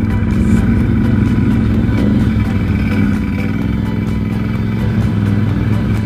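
ATV engine running steadily at low speed while the quad is ridden over rough, snow-covered forest ground.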